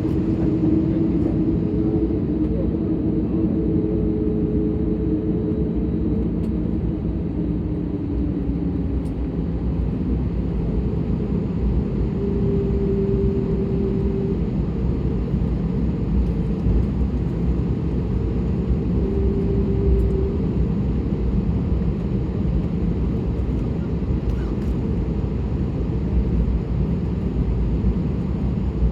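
Jet engines of an Airbus A320neo at takeoff thrust, heard inside the passenger cabin: a steady low rumble with a few faint tones held over it.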